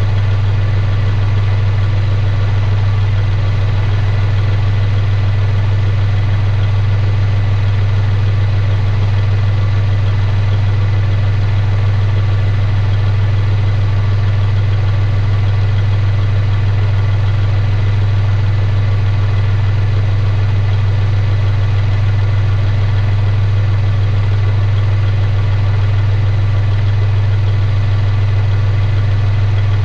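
Kubota compact tractor's diesel engine idling, a steady deep hum that never changes speed.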